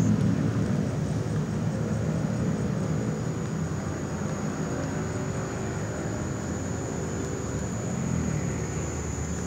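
A steady low mechanical drone, like an engine running, with a thin steady high-pitched whine above it.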